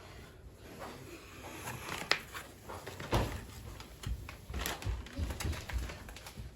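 Scattered clicks, knocks and rustles of scooter packaging and parts being handled during unboxing, with one sharp click about two seconds in.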